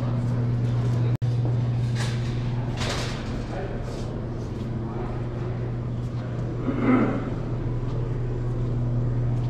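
Room tone of a large store showroom: a steady low hum with scattered faint knocks and a brief louder noise about seven seconds in. The sound cuts out for an instant about a second in.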